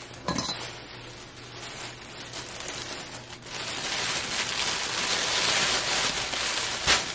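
Thin black plastic garbage bag crinkling and rustling as it is handled and bunched up by hand, louder in the second half, with a sharp click near the start.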